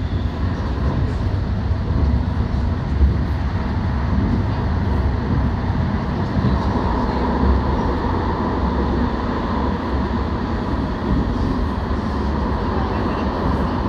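Alstom Citadis Spirit light-rail train running, heard from inside the car: a steady low rumble of wheels and running gear, with a faint higher whine that grows from about halfway through.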